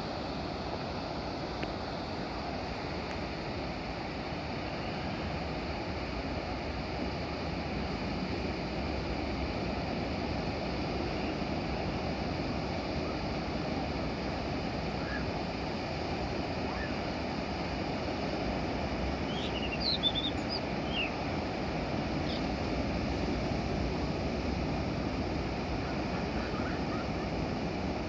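Surf from the typhoon swell breaking and washing on the beach, a steady rushing wash mixed with wind. A few short high chirps sound about twenty seconds in.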